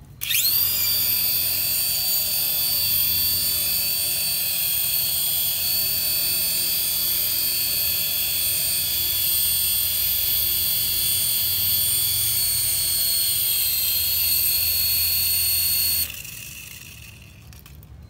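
Toy RC helicopter's small electric motors and twin stacked rotors spinning up with a quick rising whine, then running at a steady high whine. The motors cut off suddenly about two seconds before the end and the sound dies away.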